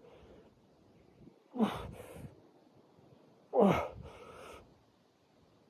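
A man's strained, voiced breaths while holding an ab-crunch position: two short gasping exhalations falling in pitch, about two seconds apart, each trailing off into breathy hiss.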